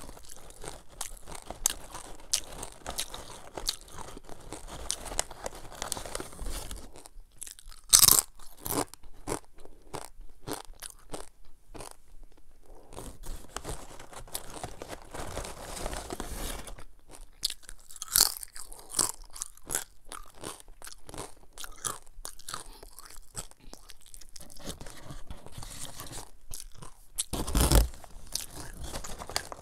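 Close-miked crunchy chewing of sea-salt cassava chips: a dense, irregular run of crisp crackles as the chips are bitten and chewed, with a few louder sharp crackles about 8 seconds in and again near the end.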